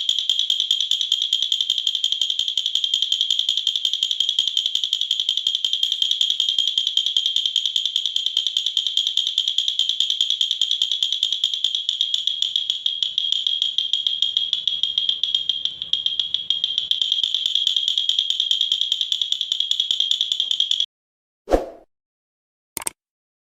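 Wooden baby rattle (jhunjhuna) shaken rapidly and continuously, a fast, even, high-pitched rattling that stops abruptly near the end, followed by two single knocks.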